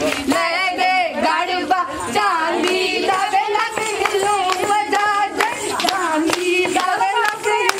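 Women singing Punjabi boliyan, folk couplets sung by a group, over rhythmic hand clapping of a gidha dance.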